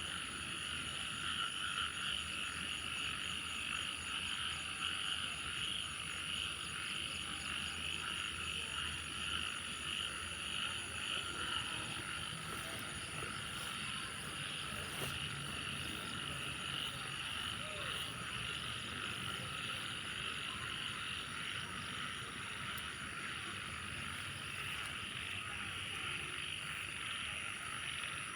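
A dense chorus of many frogs calling without a break, over a steady high-pitched whine.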